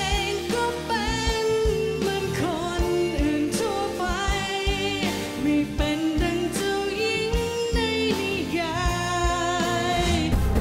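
A woman singing a sustained melody with strong vibrato into a microphone, over a band backing with bass and drums.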